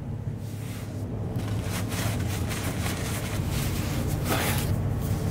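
Clothing rustling as a shirt is handled and pulled off, in rough swishes from about a second and a half in until near the end, over a steady low hum.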